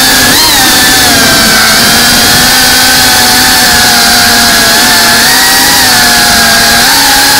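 GEPRC FPV quadcopter's brushless motors and propellers whining loudly at a steady pitch, heard close up from on board. The pitch lifts slightly with throttle just after the start and again near the end.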